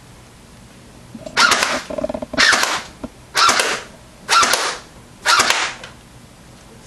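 Airsoft M1A1 Thompson electric gun (AEG) firing five single shots on semi-auto, about a second apart. Each shot is a short mechanical snap of the metal gearbox cycling.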